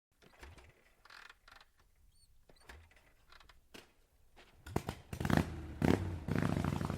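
Harley-Davidson V-twin being turned over. It starts with faint clicks and handling noises, then from about five seconds in the engine is cranked in a louder, uneven run of chugging pulses.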